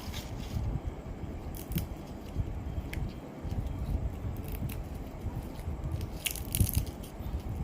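Fresh leafy vegetables being picked over by hand: scattered snaps, crunches and crackles of stems and leaves, over a low rumbling background.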